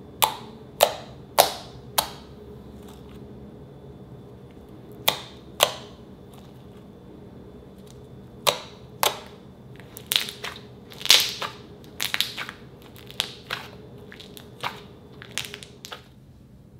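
Fingers pressing and poking into thick pink slime, squeezing trapped air pockets that pop sharply. There are single pops about half a second apart at first, then pairs, then quicker clusters of pops from about ten seconds in.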